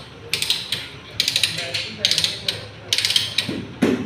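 Hand ratchet pipe-threading die stock on a steel pipe, its pawl clicking in short rattling bursts as the handle swings back and forth. A heavier knock comes near the end.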